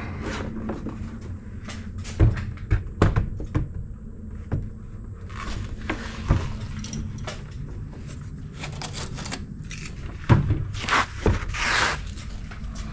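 Irregular knocks and clunks of a sliding window being handled and set into its timber frame, over a steady low hum.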